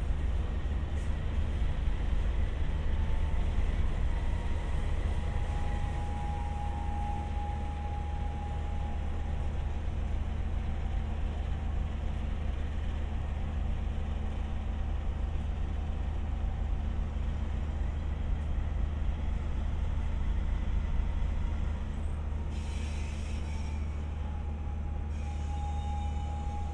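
Indian Pacific passenger train's diesel locomotive running with a steady low rumble and a hum, with a faint whine coming and going. A short hiss of air, like a brake release, sounds near the end.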